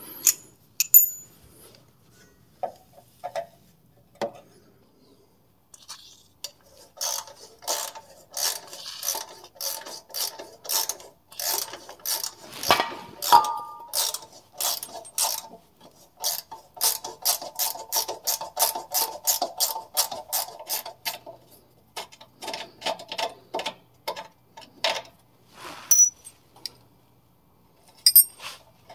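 Ratcheting tap wrench clicking as an M10 × 1.5 tap is worked into a rusty, dirt-filled threaded hole in a steel vehicle frame. A few single clicks come first, then long runs of quick clicks from about seven seconds in, thinning to scattered clicks near the end.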